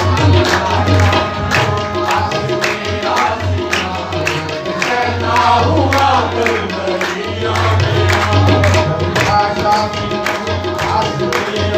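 Live qawwali music: a harmonium playing steady held notes, tabla drums keeping a rhythm, and a man singing into a microphone, with hand claps from the group.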